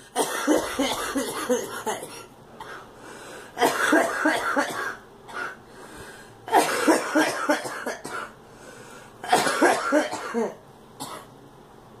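A woman coughing hard in four fits, each a second or two of rapid coughs, about three seconds apart.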